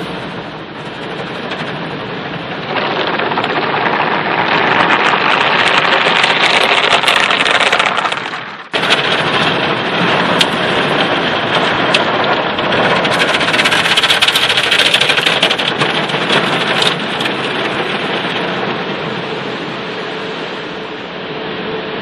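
Car-wash water spray pelting the windscreen and body of the car, heard from inside the cabin as a loud, steady hiss like heavy rain. It swells louder a few seconds in, cuts out for a moment a little before halfway, then starts again abruptly.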